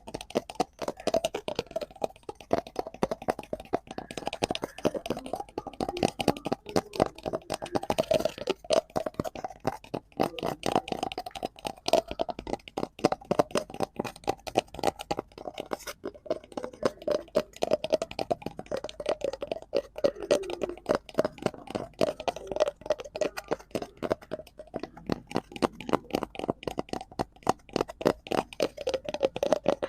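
Rapid, continuous tapping on a cardboard prop: a dense run of small dull clicks, many each second, with some louder strikes.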